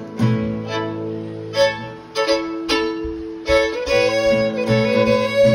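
Solo fiddle, bowed, playing a tune: a moving melody with lower notes held ringing beneath it.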